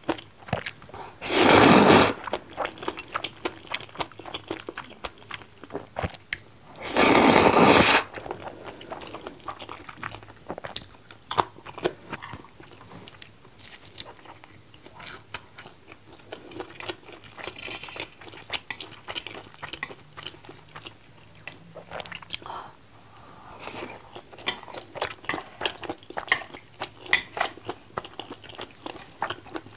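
Close-miked eating of black-bean-sauce ramen noodles: two loud slurps of noodles, the first about a second in and the second about seven seconds in, then steady chewing full of small wet mouth clicks and crunches.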